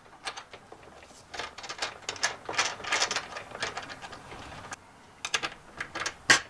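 Quick, irregular metallic clicking and rattling as a heavy battery cable is fastened onto a terminal block of a DC wiring setup. The clicks come in clusters, pause briefly, then pick up again with one sharper click near the end.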